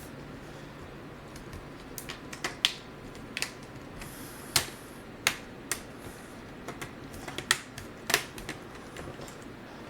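Plastic laptop screen bezel being pressed onto the display lid, its clips snapping into place in a string of sharp, irregular clicks that start about two seconds in.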